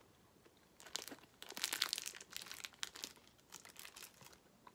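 Plastic packaging crinkling and crackling in irregular bursts, starting about a second in and dying away near the end.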